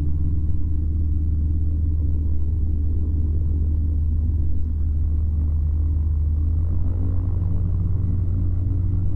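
Flexwing microlight trike's engine running steadily at low power, a deep even drone, as the trike sits or taxis on the runway.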